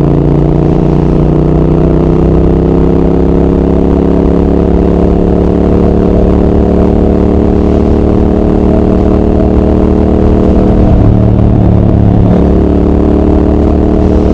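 Triumph Speed Twin 1200's parallel-twin engine and exhaust running under way, its note rising slowly as it pulls in gear. The note breaks briefly twice near the end.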